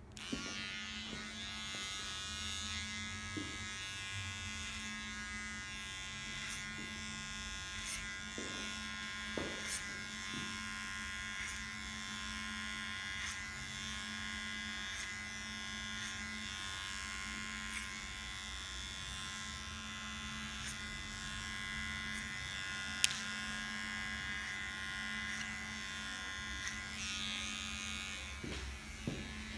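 Electric hair clippers buzzing steadily as they cut a fade, starting abruptly right at the beginning. Scattered light clicks run through it, with one sharper click a little over two-thirds of the way through.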